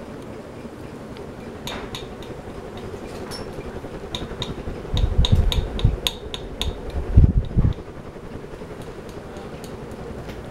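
Kenmore ceiling fan running fast on high with a steady hum. In the middle comes a run of light metallic clinks and ticks, and two brief low rumbles at about five and seven seconds in.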